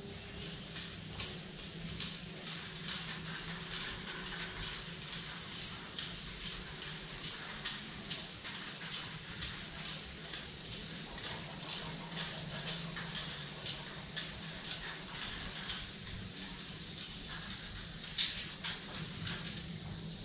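Aerosol spray-paint can hissing in quick short bursts against a wall, about two or three a second. The bursts stop about sixteen seconds in, then a few more follow near the end.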